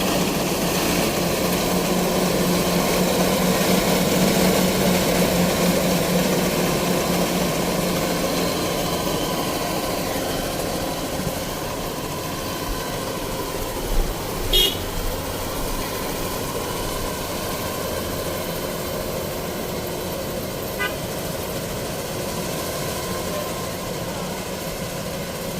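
Kubota DC-93 combine harvester's diesel engine running steadily with a constant hum, and two brief loud knocks about halfway through.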